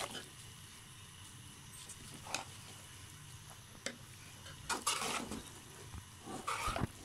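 Metal spatula scraping and clinking against the pan while spaghetti is tossed and mixed: a few short, separate scrapes, the loudest about five seconds in and near the end.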